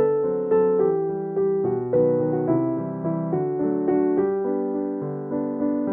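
Background piano music: a slow, gentle melody of struck notes, each fading as the next begins.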